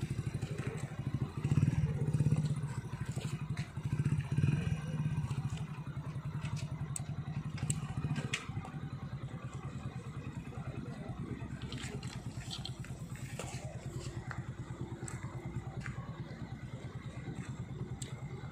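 Motorcycle engine idling with an even, fast pulse, swelling louder for a moment twice in the first five seconds.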